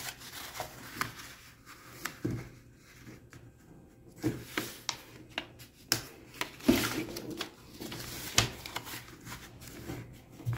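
A sheet of paper rustling and crinkling as it is turned, folded and pinched along its creases by hand, with scattered small taps and clicks.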